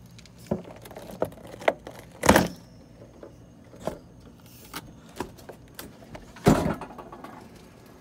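A series of clicks and knocks from the refrigerator's doors and drawers being handled and opened, with two louder thuds, about two seconds in and about six and a half seconds in.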